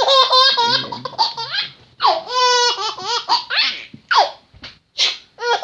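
Baby laughing in repeated high-pitched bouts, with short breaks between them.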